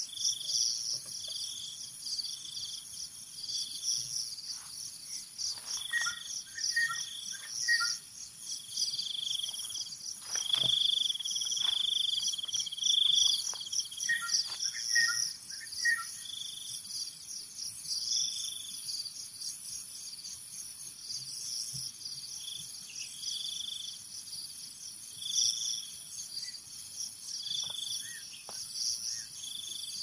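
Tropical forest insect chorus: a steady high-pitched buzz with a fast pulsing trill beneath it, over which short notes repeat every second or two. Bird calls break in twice, each a run of quick falling chirps, about six seconds in and again near the middle.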